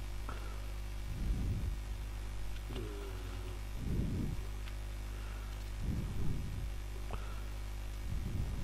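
Steady low electrical hum, with a few faint clicks and soft low puffs every couple of seconds.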